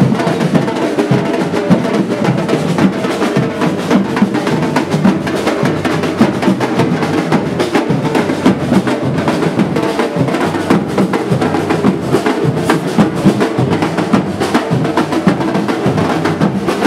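Batucada drum ensemble playing a steady, dense rhythm, many drums struck together without a break.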